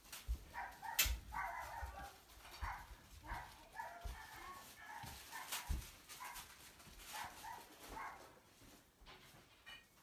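A dog whining and yipping in many short, high calls that die away near the end, with a few sharp clicks and dull low thumps among them.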